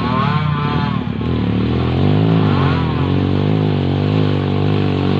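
Dirt bike engine running on a muddy trail, its revs rising and falling unevenly, getting slightly louder about two seconds in.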